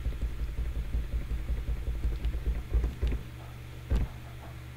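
Computer keyboard keys pressed in quick succession, a rapid run of small clicks over a low steady hum, with a single heavier key knock near the end.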